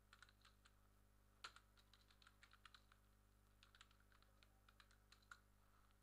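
Faint typing on a computer keyboard: quick runs of keystroke clicks with short pauses between them, the loudest keystroke about one and a half seconds in.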